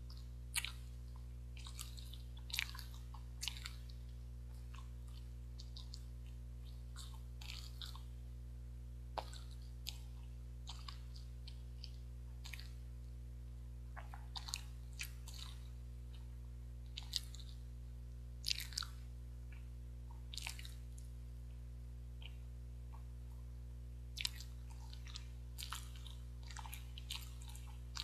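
A person chewing soft, spongy Korean steamed rice cake (jeungpyeon) close to a clip-on microphone: irregular small wet smacks and clicks of the mouth, over a steady low electrical hum.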